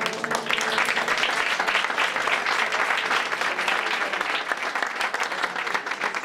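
Audience applauding, a dense steady clapping, with the last held keyboard notes dying away at the start.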